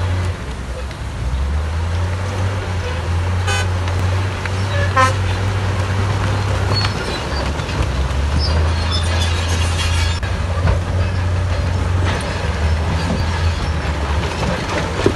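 Heavy diesel engines of earthmoving machines running with a steady low drone that shifts in pitch now and then. Short toots come about four and five seconds in, and high metallic squeaks around eight to ten seconds in.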